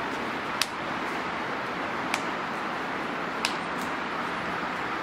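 Steady wash of road traffic noise, broken by three short, sharp clicks about a second and a half apart.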